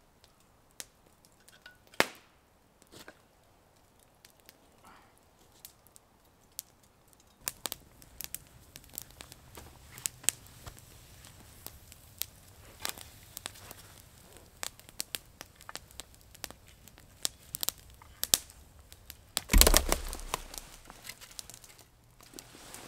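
A few sharp clicks, like cutlery on a camp plate, then a wood campfire crackling with frequent sharp pops. Near the end comes a loud rustling burst about a second long.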